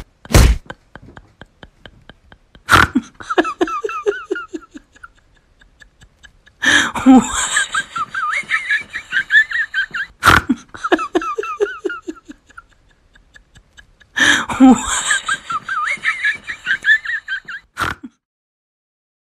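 Comedy sound effects: sharp whacks, each followed by a burst of canned laughter, with the same laugh played twice in a row. Silence near the end.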